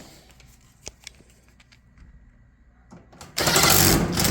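A few faint clicks, then about a second near the end of a power drill-driver running, driving in the screw that holds the dryer's control panel.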